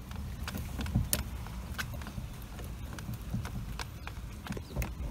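Metal lock picks clicking and scraping at a doorknob lock as it is being picked, in irregular light clicks over a low rumble.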